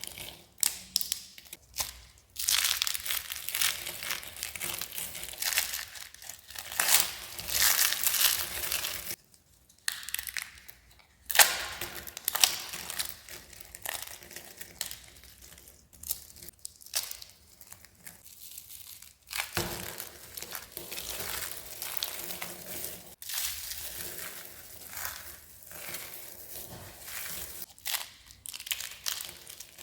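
Dry, crispy soap being crunched and crushed, a dense crackling that runs in stretches with short pauses, and one sharp snap about eleven seconds in.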